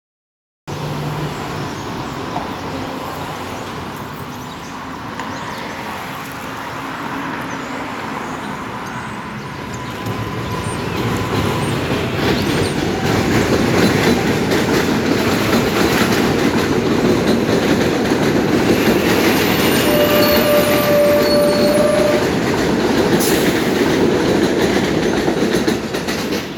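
New York City Subway L train running over an elevated steel structure: a steady rumble of wheels on rails that starts abruptly under a second in and grows louder from about halfway as the train comes closer. A brief high whine comes in near the end.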